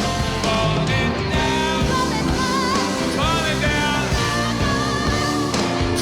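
A live rock band playing with singing over it, sung notes bending and held.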